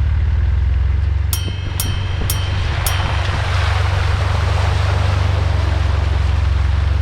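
Jeep Wrangler JK driving along a dirt trail: a steady low engine hum under tyre and wind noise. About a second in, four short high-pitched beeps come about half a second apart.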